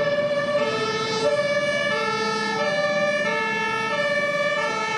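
Two-tone hi-lo emergency-vehicle siren, switching steadily back and forth between a high and a low note a little more often than every half second.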